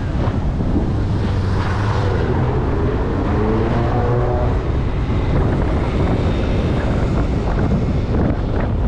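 Car driving with steady road and wind noise on the microphone, and an engine rising in pitch about midway as a vehicle accelerates.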